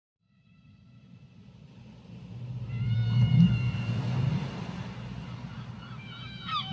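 Whale calls underwater: a low moan fades in from silence and swells about three seconds in, with thin higher tones above it, and a quick high call sweeps downward near the end.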